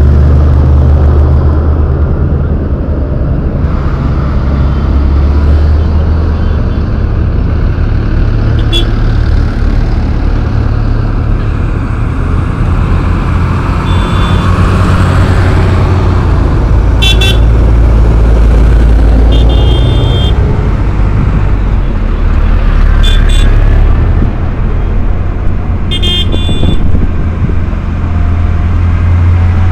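Diesel engines of a line of modern farm tractors running close by, a loud, steady low hum. Several short horn beeps sound in the second half, some in quick pairs.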